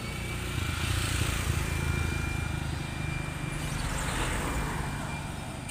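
Passing road traffic: vehicle engines swelling and fading as they go by, among them a motorcycle tricycle, which passes about four seconds in.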